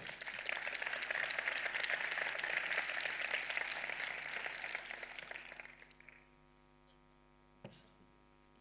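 Audience applauding, fading out after about five seconds, over a steady electrical hum.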